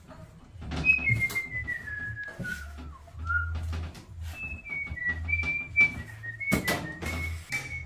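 A person whistling a tune: one high note sliding slowly down, then a string of short notes stepping up and down. Light knocks and cloth rubbing from wiping a wooden wardrobe and its drawers run through it, with a couple of sharper knocks.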